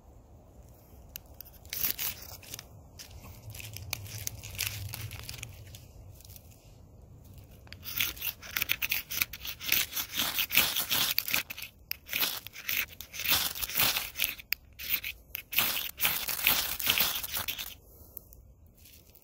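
Ferrocerium rod (firesteel) scraped over fatwood shavings to throw sparks: a few harsh scrapes about two seconds in, then a fast run of strikes lasting about ten seconds. The shavings are slow to catch.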